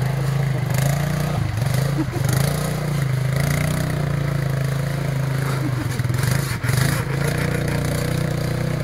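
ATV engine running steadily at low revs while the quad wades through shallow lake water, its note dipping briefly a few times.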